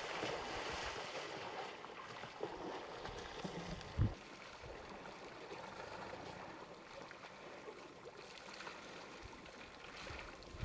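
Faint, steady outdoor background hiss with no clear single source, and one brief low thump about four seconds in.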